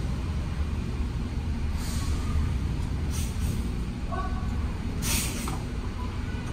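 Truck engine running with a steady low rumble, with three short hisses of air from its air brakes, the last one the loudest.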